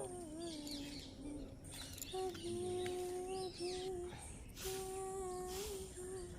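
A high voice humming a slow tune in long held notes, pausing about a second in, while small birds chirp faintly in the background.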